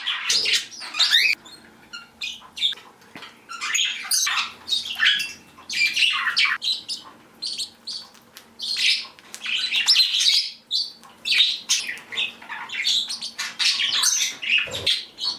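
Mixed indoor flock of pet budgies and cockatiels calling: continuous chirping and chattering in bouts, with squawks mixed in.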